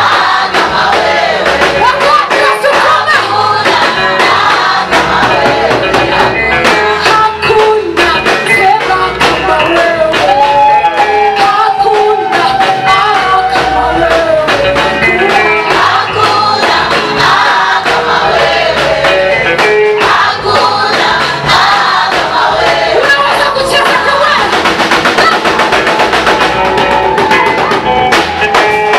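Live gospel worship music: voices singing over a band with drum kit, with one long held sung note about ten seconds in.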